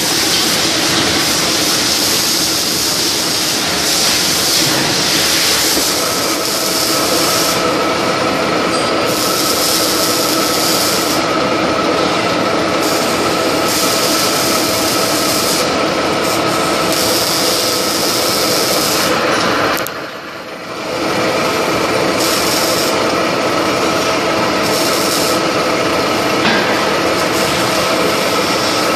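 Milling machine running, an end mill cutting the flats of a hexagon on a steel fitting held on a rotary table, with a steady whine from the machine and a high cutting hiss that comes and goes. The sound drops briefly about two-thirds of the way through.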